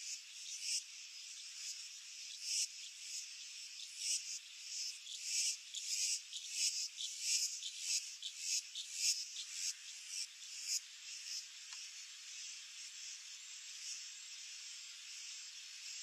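Insects chirping in a steady, high-pitched hiss, with a run of louder, sharper, irregular chirps through the middle that die away after about eleven seconds.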